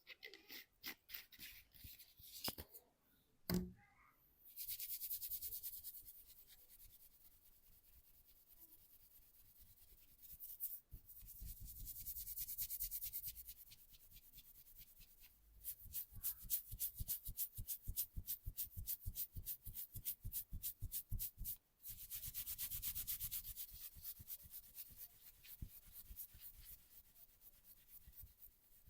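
Hands massaging, rubbing back and forth over skin and hair in spells of hissy friction. These alternate with a stretch of fast, even tapping, several strikes a second, and a few clicks and one louder knock near the start.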